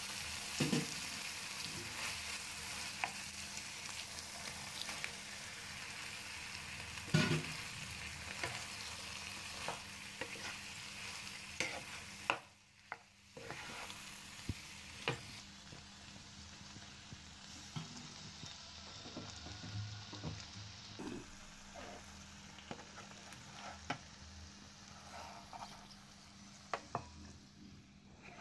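Onions and bell peppers sizzling in sauce in a nonstick frying pan, stirred with a spatula that scrapes and knocks against the pan now and then. A little under halfway through the sound drops out briefly, then a quieter simmer with occasional spatula knocks goes on.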